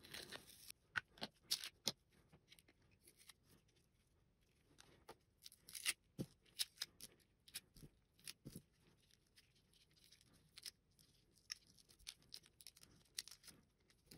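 Small plastic parts of a Logitech M185 mouse being handled and fitted together: faint, irregular light clicks and taps.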